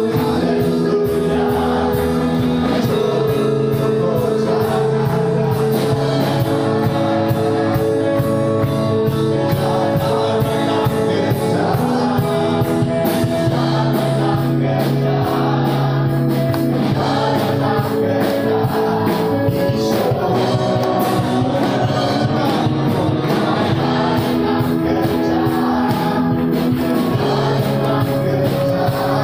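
Christian worship song sung in Garo: singing over band accompaniment with a steady beat.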